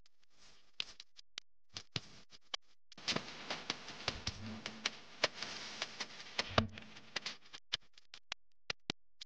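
Small paper piece handled with light taps and clicks, then a pencil scratching across the paper on a hard tile floor for about four seconds, with ticks of the lead, before light taps again near the end.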